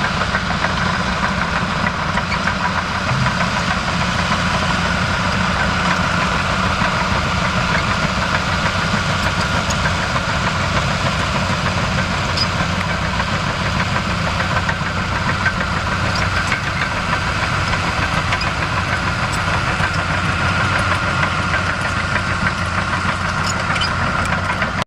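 Light aircraft's piston engine running steadily at a low, idle-like speed, close to the microphone, with no rise or fall in pitch or loudness.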